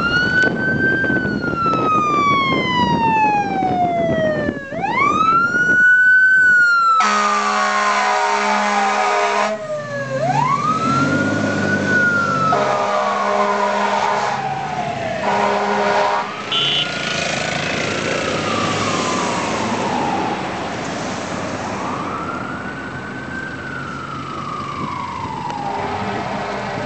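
Fire engine siren wailing, each cycle rising quickly then falling slowly, with several long horn blasts sounded over it in the first half. The siren grows fainter near the end as the truck moves off.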